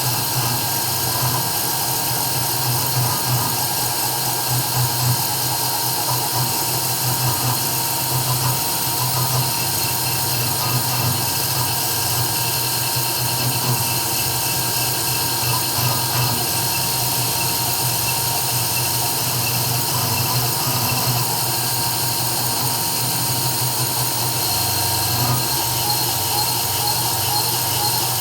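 CNC 3040 router engraving: the spindle motor runs steadily with a high whine, over a low, fluttering hum from the cutting and the axis motors.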